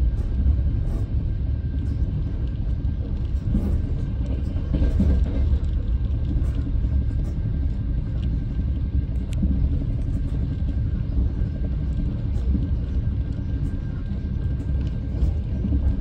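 Passenger train running along the track, heard from inside the carriage: a steady low rumble of wheels and running gear, with faint scattered ticks and a thin steady high tone.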